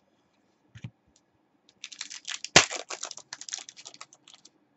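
Foil wrapper of a trading-card pack being torn open and crinkled by hand: a dense run of crackles for a couple of seconds with one sharp snap in the middle, after a single low thump near the start.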